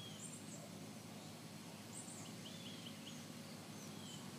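Faint chirps of small birds: short high calls scattered every second or so, with a quick run of several notes near the middle, over a steady low hum.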